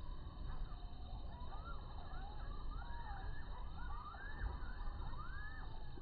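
A distant siren wailing in quick rising-and-falling sweeps that overlap one another, starting about half a second in, over a steady low rumble.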